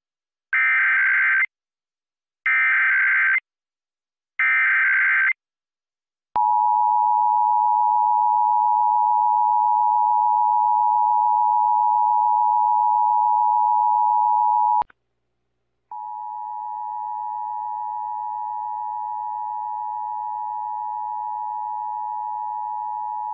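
Emergency Alert System test opening: three one-second bursts of screeching digital SAME header data, then the steady two-tone EAS attention signal for about eight seconds. After a one-second break, a second, quieter run of the attention tone follows with a faint hum under it, continuing to the end.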